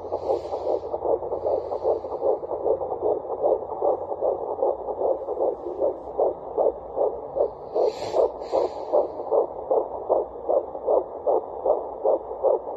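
Handheld HST fetal Doppler playing a fetal heartbeat through its speaker: a fast, even pulse of about 150 beats a minute, within the normal range for a fetus at 12 weeks and 6 days. Brief hissing noises come near the start and again about eight seconds in.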